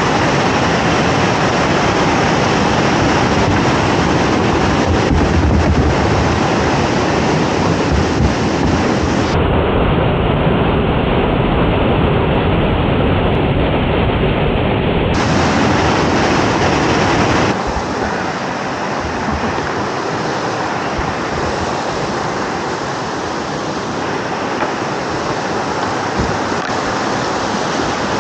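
Loud, steady rush of whitewater pouring down a rock-slab slide. The sound shifts abruptly in tone and loudness a few times.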